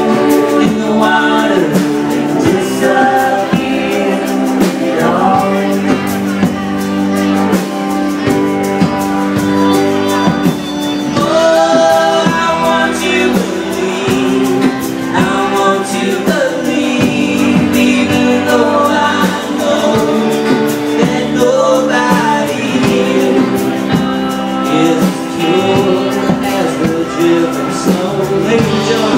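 Live band music: a fiddle playing a long melodic line with sliding notes over strummed acoustic guitar, bass and organ, in an instrumental break between sung verses.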